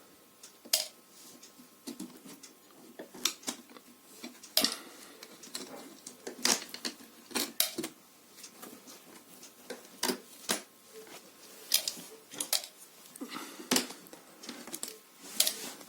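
Irregular sharp clicks and knocks, a dozen or more, from the parts of a slatted sofa base being handled as its second section is opened up.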